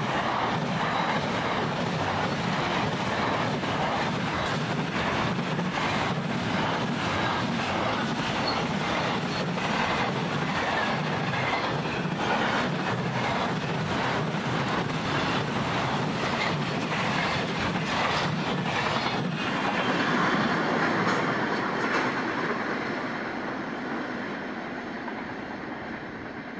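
Loaded container wagons of a long freight train rolling past at speed, their wheels clacking over the rail joints in a rapid, steady rhythm. Near the end the last wagon goes by and the rolling noise dies away.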